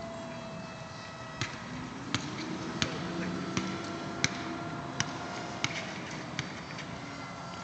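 Faint whine of the Multiplex Funjet's electric motor in flight, its pitch drifting a little, under a series of sharp knocks about every 0.7 seconds.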